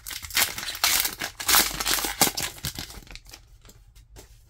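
Foil wrapper of a Pokémon trading card booster pack crinkling and tearing as it is ripped open and crumpled in the hands. The crackling fades after about three seconds to a few faint rustles.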